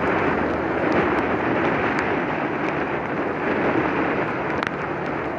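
Wind rushing over the microphone and tyres hissing on a wet road while riding a motorcycle, with a low steady engine hum underneath.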